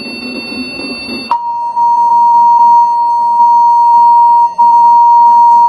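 Emergency alert tone: a loud, steady single beep near 1 kHz comes on about a second in and holds, broken once briefly near the end. Before it there is a noisy hiss with faint high whines.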